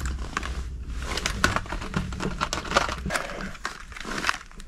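Handling noise: rustling and irregular light clicks of packaged lures being taken off metal pegboard display hooks, with jacket fabric brushing against the microphone.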